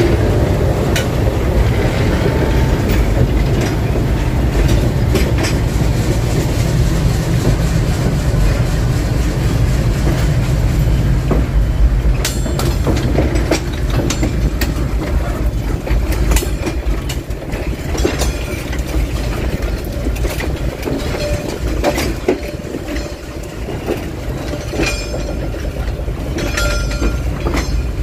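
D13E diesel locomotive hauling a train of passenger coaches at slow speed: a steady low engine rumble with the wheels clicking over rail joints, the clicks sharper and more frequent in the second half.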